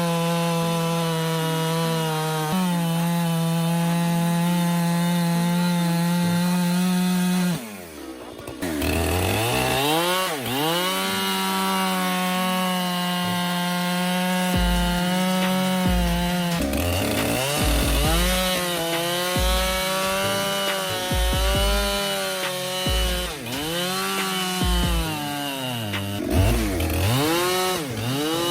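Chainsaw running at high revs with a steady engine note. About eight seconds in the note drops deeply and climbs back, and in the second half it dips and recovers several more times.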